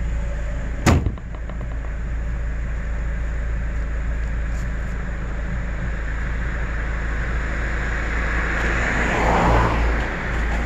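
Vehicle driving with a steady low road rumble, a single sharp bang about a second in, and a louder rush of noise near the end.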